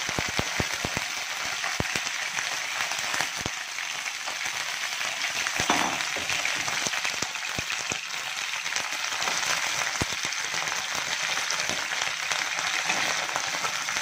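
Cut okra pieces sizzling and crackling as they fry in hot oil in a nonstick pan, a steady hiss with sharp pops that come thickest in the first few seconds.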